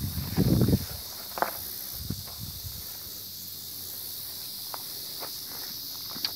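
Footsteps and rustling through tall grass, loudest about half a second in, with a few short knocks, over a steady high hiss of insects.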